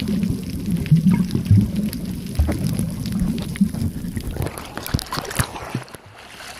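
Muffled underwater water noise on a camera held below the surface: low, irregular sloshing and rumbling with scattered clicks. Near the end the camera breaks the surface, the rumble drops away, and a few small splashes and drips are heard.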